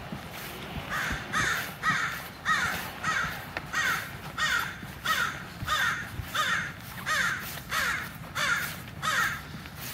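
American crow cawing, a long steady series of loud, harsh caws, roughly two every second, starting about a second in and stopping just before the end.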